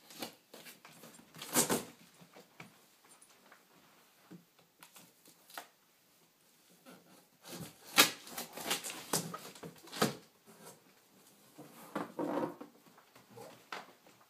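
Cardboard box and packing material being handled and pulled out: irregular rustling, scraping and knocks, with louder clusters near the start, around the middle and shortly before the end.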